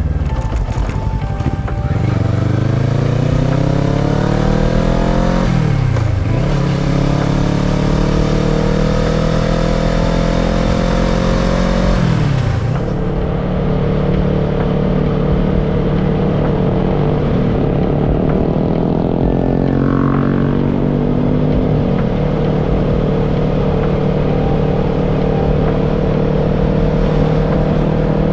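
Kawasaki ER-6n's parallel-twin engine accelerating through the gears: the pitch rises, drops at an upshift about six seconds in, rises again and drops at a second upshift around twelve seconds, then holds steady at cruising speed.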